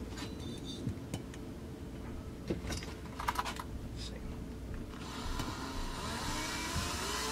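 Scattered light clicks and taps of small parts being handled, then a cordless drill driver with a long bit runs slowly from about five seconds in, its pitch rising near the end.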